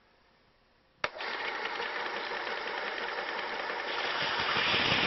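WorkSharp 3000 sharpener's electric motor switched on about a second in, then running steadily with its abrasive belt. Near the end a brighter grinding hiss joins it as a knife edge is drawn across the belt.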